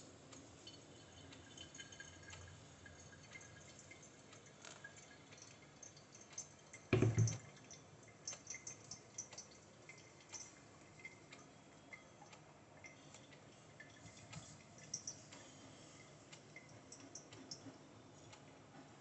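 Quiet water sounds of a pour-over brew in a Kalita Wave dripper: a thin stream from a gooseneck kettle onto the coffee bed and coffee dripping through, with faint scattered ticks. One dull thump about seven seconds in is the loudest sound.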